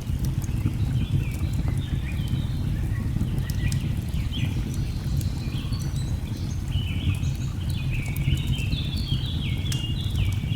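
Layered nature ambience: a steady low rush of falling water, many short bird chirps that grow busier about halfway through, and scattered sharp crackles of a log fire.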